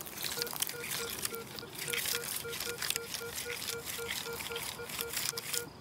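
Minelab Manticore metal detector giving a repeated beeping target tone, about four short mid-pitched beeps a second, as the coil passes back and forth over a buried target that reads around 14–15 on its display. Scratchy crackling from the coil brushing through dry grass runs under the beeps.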